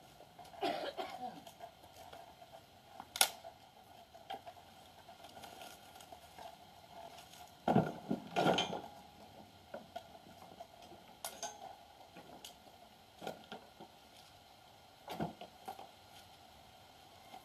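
Pieces of scrap wood knocking and clattering as they are handled for kindling: a handful of separate sharp knocks, the loudest cluster about eight seconds in.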